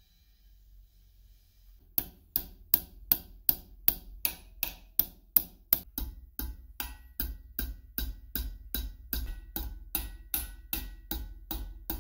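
Hammer tapping a small stainless steel reel part held with pliers on a steel vise: a steady run of sharp metallic taps, about two and a half a second, starting about two seconds in.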